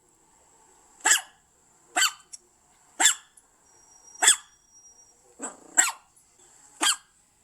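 A dog barking, single barks roughly once a second, about seven in all, with two close together near the end.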